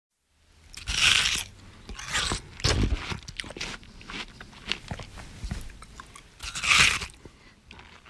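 A person biting and chewing watermelon. Loud crunching bites come about a second in, twice more around two to three seconds, and again near seven seconds, with smaller wet chewing clicks in between.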